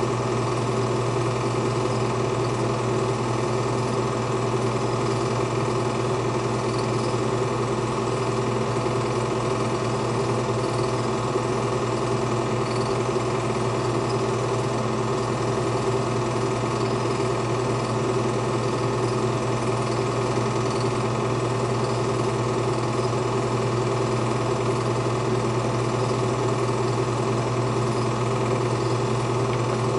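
Film projector running steadily: a constant mechanical whir and fine rapid clatter of the motor and film transport, with a steady hum underneath.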